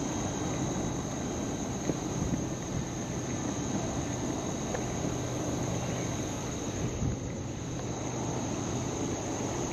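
Steady wind and choppy water around a kayak on open water, with irregular low rumbling and a thin, constant high-pitched tone over it.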